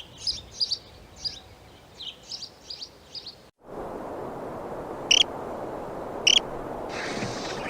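High chirping calls, several a second, typical of a small bird, for about three and a half seconds. After a sudden break comes a steady rushing noise, with two short sharp high calls about a second apart.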